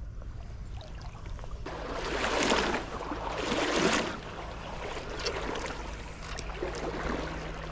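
Shallow creek water sloshing around legs as someone wades through it, in a few swishing surges, the two loudest in the first half.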